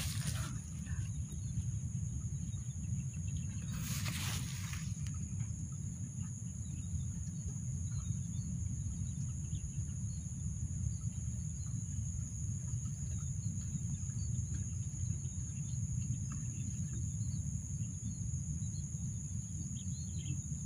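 Low, steady rumble of wind on the microphone, with a thin, steady high-pitched drone of insects from the marsh reeds. A brief rustle or knock comes about four seconds in.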